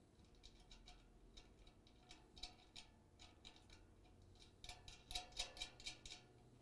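Faint, light metallic clicks and ticks of a locking nut being fitted by hand onto a button head bolt, with a quicker, louder run of clicks about five seconds in.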